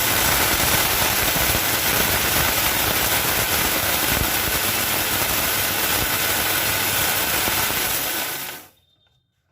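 Electric mixer grinder running with its small jar, grinding dried whole cloves, bay leaves and black cardamom seeds into a fine powder. It is a loud, steady motor-and-grinding noise that cuts off about eight and a half seconds in.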